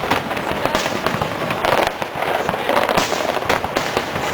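Fireworks going off in a dense, continuous stream of bangs and crackles, many overlapping bursts with no pause.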